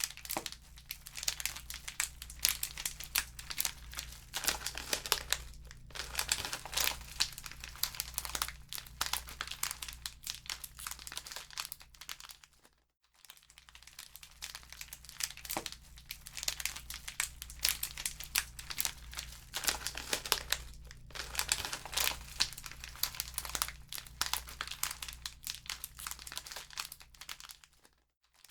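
Wood fire crackling in a fireplace: dense, irregular pops and snaps over a low steady hum. The crackle cuts out for a moment about thirteen seconds in and again near the end.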